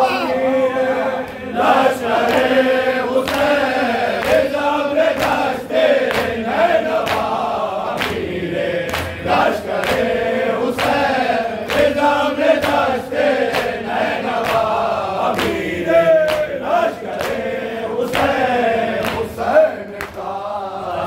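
Group of men chanting an Urdu noha (Shia lament) in unison behind a lead reciter, with sharp rhythmic chest-beating (matam) slaps about once or twice a second.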